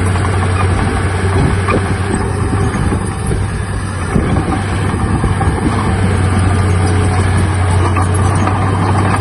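Heavy diesel earthmoving machinery running steadily, with a strong low engine hum and clatter.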